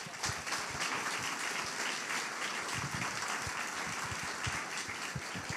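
Congregation applauding: steady clapping from many hands.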